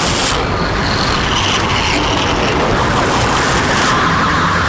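Loud, steady wash of rumbling, hissing noise from an experimental recording, with no clear pitch or beat; a band of higher hiss swells in the second half.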